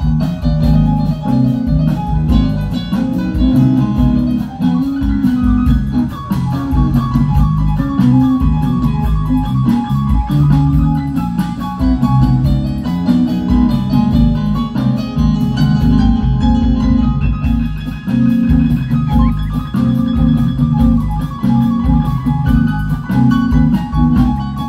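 Band music with guitar, bass and drums, played steadily throughout.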